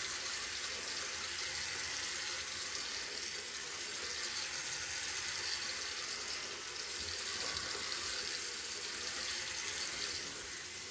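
Faucet of a newly installed bathroom sink running steadily into the basin, tapering off near the end.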